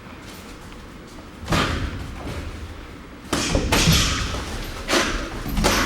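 Boxing gloves landing punches in a sparring exchange: several heavy thuds, one about a second and a half in, a quick cluster past the middle, and two more near the end.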